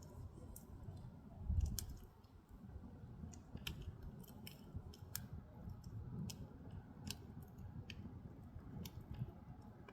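Firewood burning in an agungi, the firebox under a Korean ondol floor: irregular sharp crackles and pops over a low rumble of the fire, with a louder low thump about one and a half seconds in.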